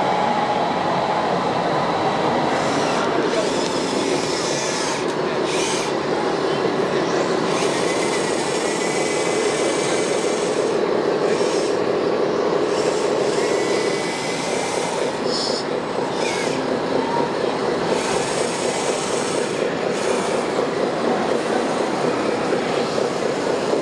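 Radio-controlled construction models running: a steady mechanical whirring and clatter of small motors and running gear, with a few faint squeaks.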